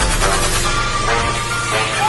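Background music: layered, held tones over a steady low bass.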